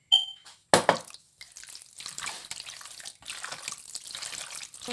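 A sharp knock about three quarters of a second in, then wet, irregular mixing sounds as chicken pieces are worked through a thick yogurt-and-spice marinade.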